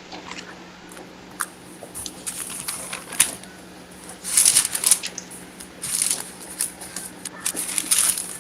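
Bible pages being leafed through: crisp paper rustles and small flicks, loudest about four and six seconds in, over a steady low hum.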